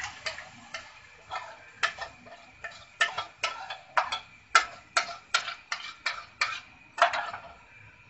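Sharp knocks on an upturned plastic bowl, about a dozen at roughly two a second, as the last of a thick yogurt and besan batter is knocked out into a steel pot.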